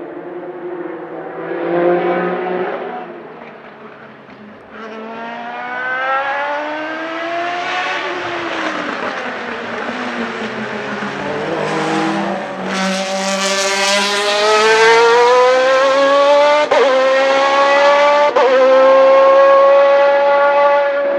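Zytek V8 race engine of the MG-AR1 Furore hillclimb car running on track, its pitch falling and rising as it laps. It revs up hard toward the end, with two quick upshifts about 16 and 18 seconds in.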